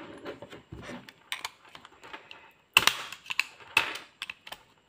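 Light metal clicks, taps and scrapes as a flat blade pries at the lock ring inside a bicycle dynamo's housing. The sharpest clicks come about three and four seconds in.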